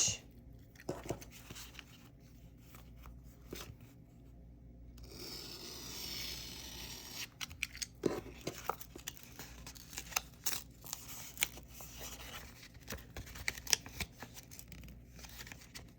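A mail package being opened by hand: packaging rustling and tearing, with scattered small clicks and a longer stretch of tearing about halfway through.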